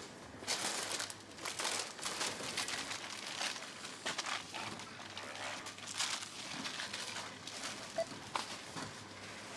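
Plastic grocery packaging crinkling and rustling in short, irregular bouts as groceries are handled at a supermarket checkout.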